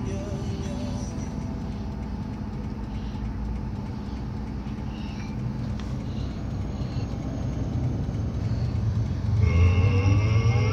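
Steady low rumble of a car's engine and road noise, heard from inside the cabin. Near the end, a louder pitched sound with rising tones joins it.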